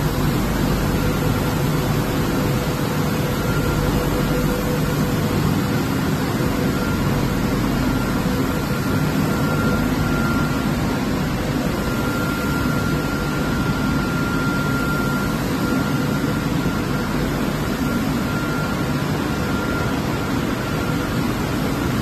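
Full-automatic plastic tray washing machine running: a steady rush of water spraying inside the wash tunnel together with fan noise, with a faint steady whine over it.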